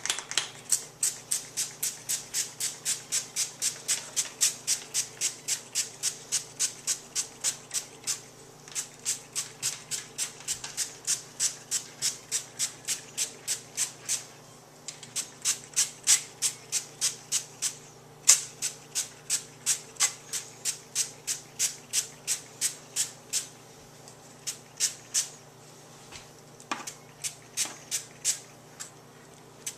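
A bottle of spray butter being pumped over a chicken: quick hissing squirts, about three to four a second, in runs broken by a few short pauses.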